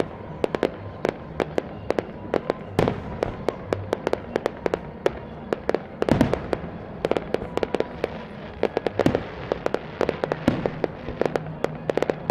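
Fireworks display: aerial shells and smaller effects bursting in a rapid, irregular string of bangs and pops, several a second. The heaviest cluster of bangs comes about six seconds in.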